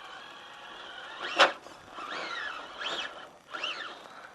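Hobbywing Fusion Pro 2300kV brushless motor in an RC crawler whining as the throttle is worked: several short whines that rise and fall in pitch, with a brief sharp click about a second and a half in.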